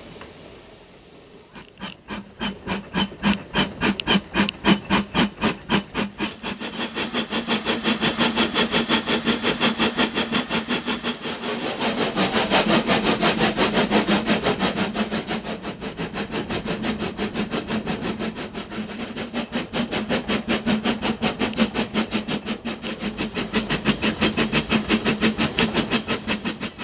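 Schynige Platte Bahn rack-railway steam locomotive starting off and working up the line: its exhaust chuffs begin about a second and a half in, quicken to a fast, even beat, and carry on with steam hiss.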